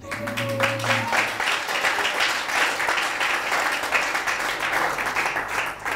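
A congregation applauding: many people clapping together, steady throughout.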